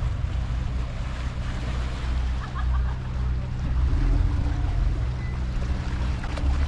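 Steady low rumble of an approaching ferry's diesel engines, with wind buffeting the microphone over the sound of the water.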